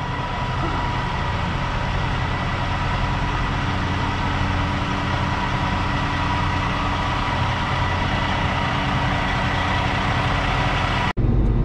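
Heavy truck's diesel engine running as the truck pulls slowly forward, a steady low drone with a steady whine over it. Just before the end the sound cuts suddenly to a louder truck engine heard from inside the cab.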